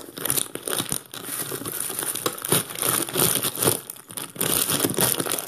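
Packaging wrap crinkling and crackling as it is pulled open by hand, in a dense, irregular run of crackles.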